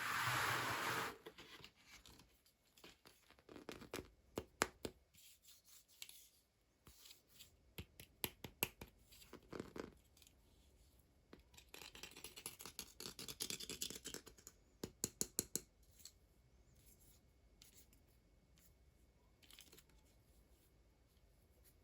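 Hands working on toy packaging: a loud rasping hiss in the first second, then scattered sharp clicks, snips and scraping of plastic and cardboard, with a quick run of clicks a little past the middle.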